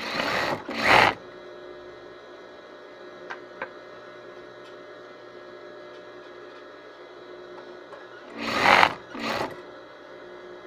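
Sewing machine stitching in two short runs, one at the start and one near the end, with a steady hum between them and a couple of faint clicks.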